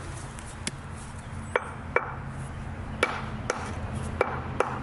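A brick hammer striking the edge of a bluestone flagstone in a series of sharp blows at irregular intervals, knapping it: chipping off a little stone at a time to shape the cut.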